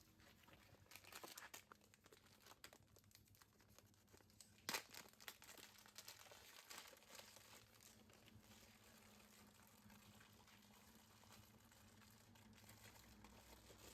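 Faint crinkling and crackling of plastic packaging being handled and opened to get at a replacement chainsaw fuel line, in irregular small crackles with a sharper one about five seconds in.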